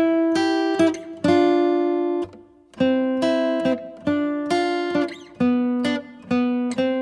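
Music of acoustic guitar chords, strummed in a steady rhythm, each chord ringing and fading before the next, with a short pause a little after two seconds in.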